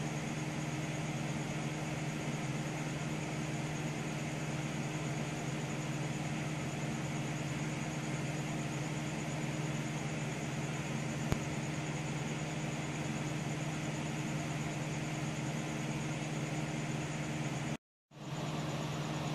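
Desktop computer's cooling fans and drive running with a steady hum and hiss, with a low steady tone under it. The sound cuts out completely for a moment near the end.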